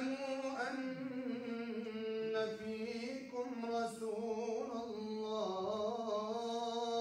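A man reciting the Quran in melodic chant, drawing out one long phrase. He holds mostly on one pitch, with small wavers and a dip in pitch near the end.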